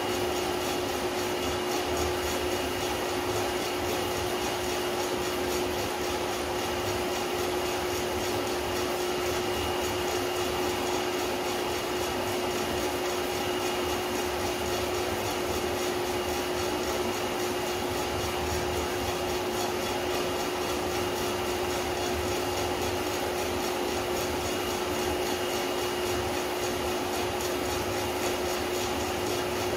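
Small electric drum coffee roaster running mid-roast: a steady motor and fan hum over the rattle of Culi peaberry beans tumbling in the drum. The roast is just past the end of the drying phase, short of first crack, and no cracking is heard.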